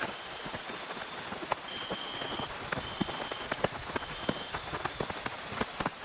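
Steady rain falling on a tent, with many individual drops ticking sharply against the fabric over a constant hiss. A faint thin high tone comes and goes behind it.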